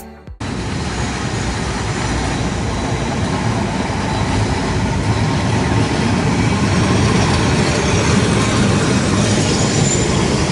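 Vintage Milan tram running along its street rails and passing close by, a steady noise that grows slightly louder toward the end.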